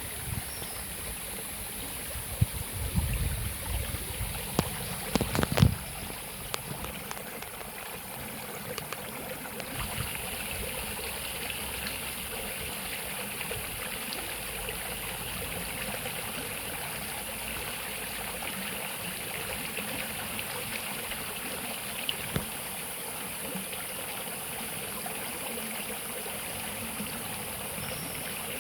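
Steady rushing of flowing water, with a few low bumps and knocks in the first six seconds.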